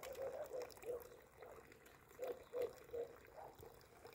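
Carp feeding on floating bread at the pond surface: a scattering of small wet slurps and pops, several close together about two to three seconds in.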